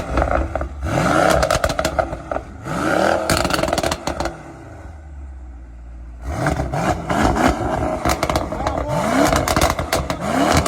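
Vehicle engine revved in quick throttle blips, each rising in pitch and followed by crackling pops from the exhaust as the revs drop. It settles to idle for about two seconds near the middle, then is blipped several more times.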